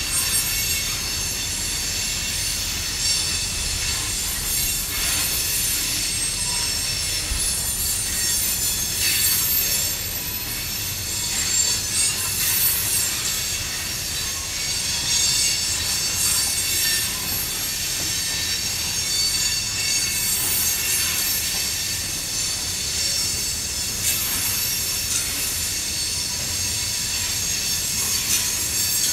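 Freight train's covered hopper cars rolling through a tight curve, their wheel flanges squealing steadily at several high pitches over a low rumble of wheels on rail.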